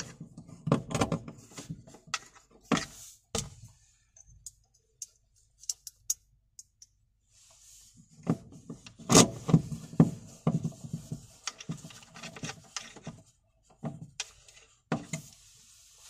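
Irregular clicks, taps and rubbing of hands working a clear plastic cover on a metal panel. For a few seconds near the middle there are only scattered ticks, then a dense run of knocks and handling noise.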